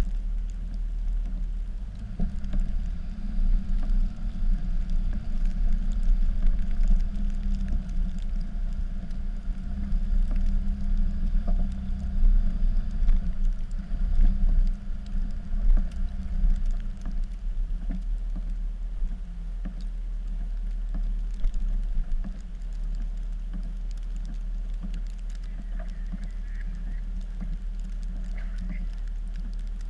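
Dodge pickup's Cummins turbo-diesel engine running under load while plowing snow. It rises and falls in level through the first twenty seconds or so, then settles to a steady drone.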